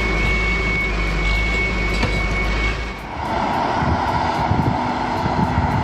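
Heavy vehicle engines running. For the first three seconds a low rumble with a thin steady high whine, then an abrupt cut to a different engine sound.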